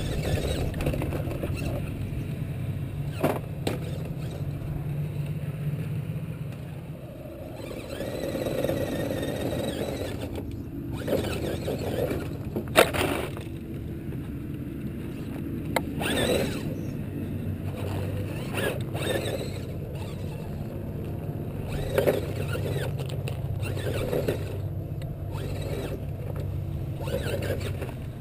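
Electric motors and geared drivetrains of radio-controlled rock crawlers (Axial AX-10 and Wraith) whining as they crawl over boulders and dirt, the pitch rising and falling with throttle. Tyres scrape on rock, and there are several sharp knocks of the trucks against the stones, the loudest about halfway through.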